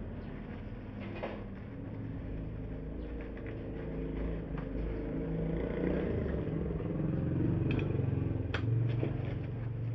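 A motor vehicle engine running steadily and getting louder over the second half. A few sharp plastic clicks come from chair parts being handled, the loudest near the end.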